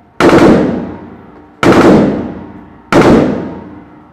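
AK-47 rifle firing on full auto: three short bursts about a second and a half apart, each ringing off the walls of an indoor range.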